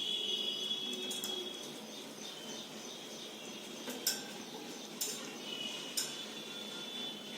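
Cockatiels calling in drawn-out high chirps near the start and again in the second half, with a few sharp clicks or taps in between.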